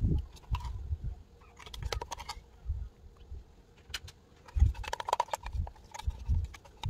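A plastic spoon scraping and knocking against a plastic pot and mixing bowl while scooping out thick hair-mask cream: irregular clicks and scrapes over dull handling bumps.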